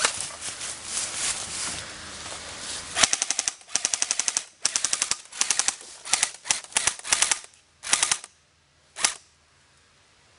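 Airsoft electric rifles firing on full auto: a dense, steady clatter of fire at first, then a string of short bursts of rapid clicks from about three seconds in, the last one a little before the end, then it falls quiet.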